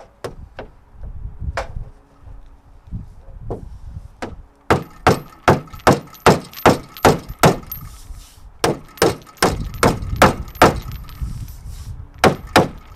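Hammer blows on a car's crumpled steel front end, held under tension by a come-along to straighten collision damage. A few scattered strikes, then quick runs of about three blows a second with a metallic ring, broken by short pauses.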